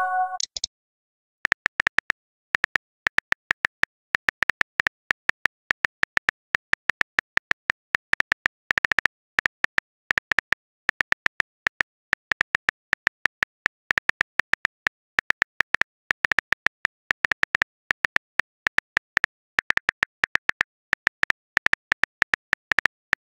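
Simulated phone keyboard typing sound: a long run of short, sharp key-tap clicks, several a second and irregularly spaced, as a message is typed out one letter at a time. There is a brief pause about a second in.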